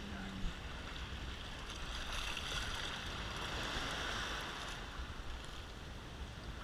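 Small waves breaking and washing through the shallows close to the microphone, with a steady low rumble underneath. The surf hiss swells from about two seconds in and eases just before five seconds.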